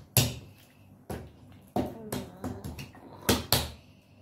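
A hand slapping the lid of a plastic tub, five sharp pats at uneven spacing, two of them in quick succession a little past the middle.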